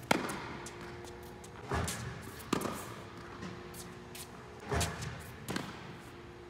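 Tennis ball impacts as volleys are hit off a ball machine: a sharp racket strike right at the start, then two pairs of thuds and strikes about three seconds apart. Soft background music plays under them.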